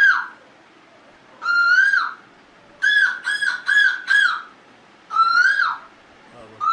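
A person imitating a bird with the voice: high, whistle-like calls that each rise and then drop sharply. There is one call, then four in quick succession, then two more spaced apart.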